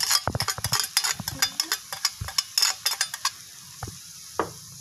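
A quick run of clinks and scrapes as seasoning powder is tipped and knocked out of a glass bowl into a wok of snails. From about three and a half seconds in, only a faint steady sizzle is left.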